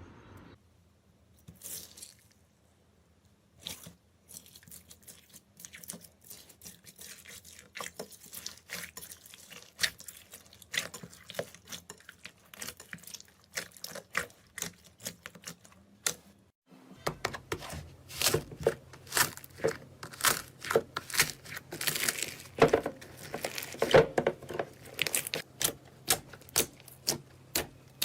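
Slime being squeezed and worked by hand: a run of sticky clicks, crackles and pops, sparse at first and then busier and louder from a little past halfway.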